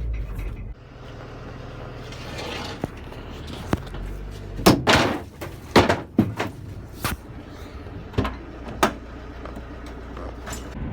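A run of about nine sharp knocks and bangs at uneven spacing, the loudest in the middle, over a low steady rumble.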